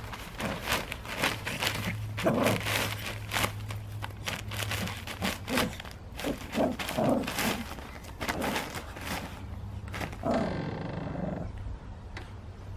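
Black plastic bin bag crinkling and rustling under a Tibetan spaniel puppy's paws as it plays at a raw beef bone, with short low growls from the puppy several times.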